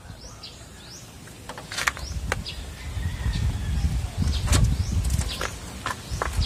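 Licence plate and its plate holder being handled and pushed onto the bullbar's plate mount: scattered sharp clicks and knocks over a low handling rumble.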